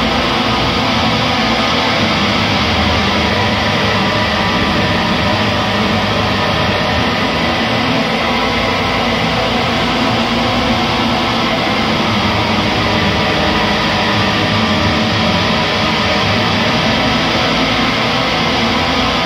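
Atmospheric post-black metal music: a dense, steady wall of noisy sound with many sustained tones and no break.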